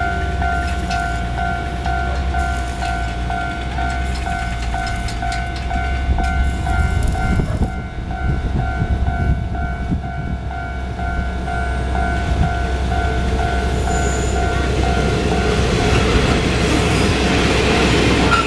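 Taiwan Railways freight train, an electric locomotive hauling hopper wagons, passing on curved track: a low rumble and the clatter of wagon wheels, getting louder toward the end, with a short high squeal about 14 seconds in. A steady pulsing ringing tone sounds along with it and stops about three seconds before the end.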